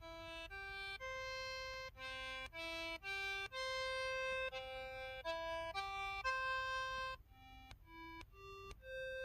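KTF-TR2000 mobile phone button tones: a run of single synthesized notes, one after another at changing pitches like a melody. Between about seven and nine seconds in, the notes are shorter and fainter.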